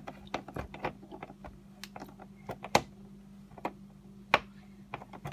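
Irregular sharp clicks and taps of hand tools and metal parts being handled while screws and hose clamps are tightened in the engine bay, a few a second and unevenly spaced, over a steady low hum.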